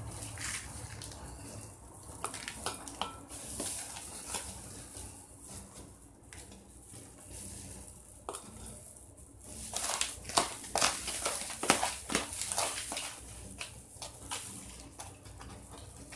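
A plastic scoop scraping and digging potting soil in a plastic bucket and tipping it into a glass bowl over gravel, with rustling and irregular clicks and taps. A quick run of sharp clicks and taps, the loudest part, comes about ten to thirteen seconds in.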